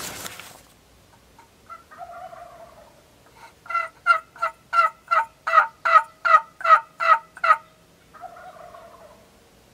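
Wild turkey hen yelps made on a hunter's turkey call: a run of about eleven evenly spaced yelps at roughly three a second, with a softer, shorter call before them and another after.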